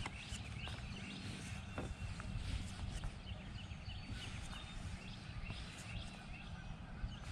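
Faint birdsong: short high chirps repeating over a low steady rumble.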